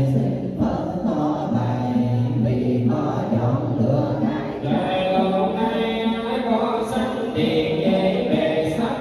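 A group chanting a Vietnamese Buddhist sutra in unison (tụng kinh). The men's and women's voices hold sung notes that change pitch every second or so, and higher voices grow stronger about halfway through.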